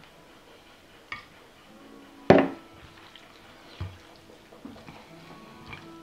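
Kitchen dishes and utensils being handled: a loud clank about two seconds in that rings on briefly, with lighter knocks and clicks around it.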